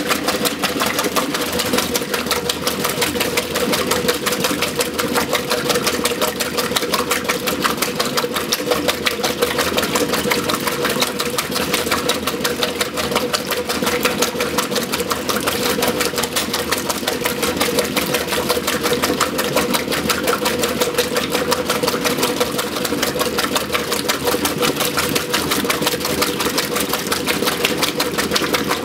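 1963 Frigidaire Custom Imperial washer agitating a load of laundry: the motor and Multi-Matic belt-drive transmission run steadily, with a fast, even churning rhythm as the Deep Action agitator swishes and splashes the water.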